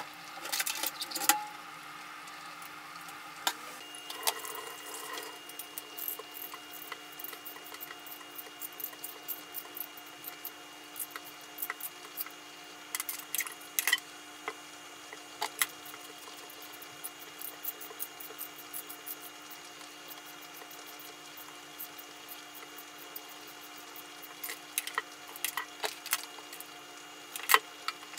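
Pots of vegetables boiling on a gas stove, then a kitchen knife peeling a chayote over a plastic cutting board: scattered light clicks and scrapes over a steady hum.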